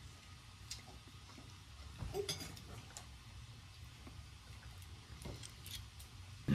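Quiet clinks and taps of a meal at a table: hands and food against china plates. There is a cluster of small clinks about two seconds in and a sharper knock near the end.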